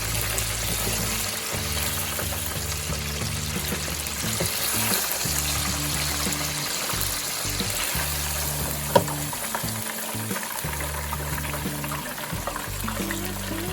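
Chicken pieces frying in hot oil with a steady sizzle, under background music with held low bass notes. A single sharp click about nine seconds in.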